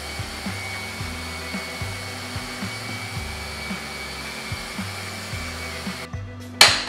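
Background music with a steady low beat over the steady whir of a power tool, which stops about six seconds in. Just before the end comes a short, sharp burst of noise, the loudest sound.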